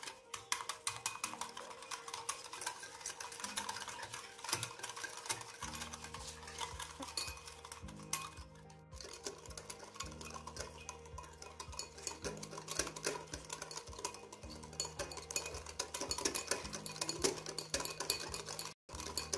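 Small metal wire whisk beating dalgona coffee (instant coffee, sugar and hot water) in a glass bowl: fast, continuous clicking and scraping of the wires against the glass as the mixture whips into a thick cream. Background music with a low steady pulse comes in about six seconds in.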